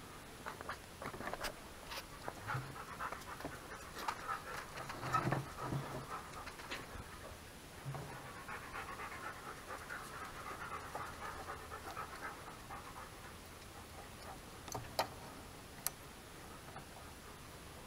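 A dog panting rapidly, loudest a few seconds in and dying away later. A few sharp plastic clicks come from a headlight housing being handled.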